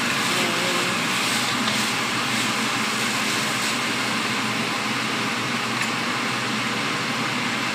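Chicken pieces and garlic sizzling in sauce in a nonstick frying pan: a steady hiss with a few faint crackles, over a steady low hum.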